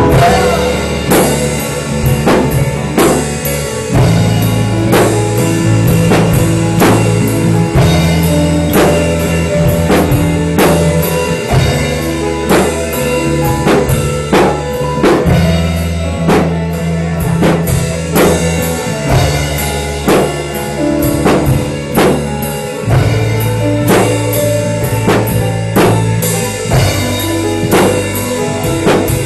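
Live band playing an instrumental passage with no vocals: a drum kit keeps a steady beat under held bass notes, guitars and keyboard.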